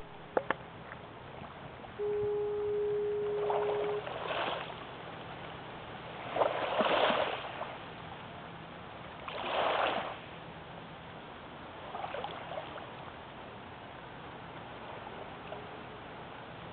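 Foghorn sounding one steady, single-pitched blast of about two seconds, starting about two seconds in. Three louder whooshes of rushing noise, each about a second long, come after it.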